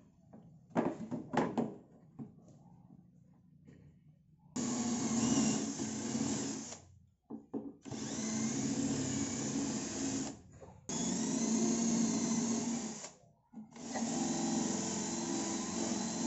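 Green cordless drill running into the cabinet's side panel in four runs of two to three seconds each, with short pauses between. A few sharp knocks come about a second in, before the first run.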